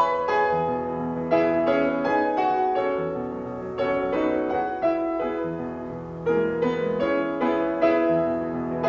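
Background piano music, a gentle melody of struck notes with sustained chords.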